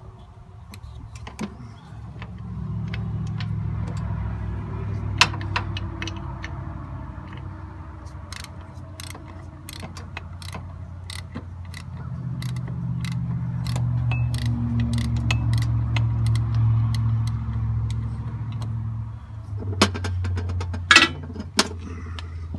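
Metal hand tools clicking and clinking against a tractor's air-conditioning compressor and its mounting bracket as it is worked loose, with a sharper clatter of tools near the end. A low rumble swells twice underneath.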